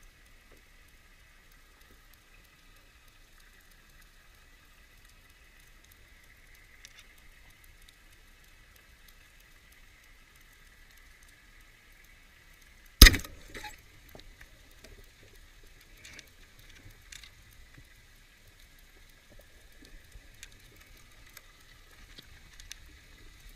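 Underwater through the camera housing: a faint steady hiss, then about halfway through a single loud, sharp crack as a band-powered wooden speargun is fired. Faint scattered clicks and knocks follow.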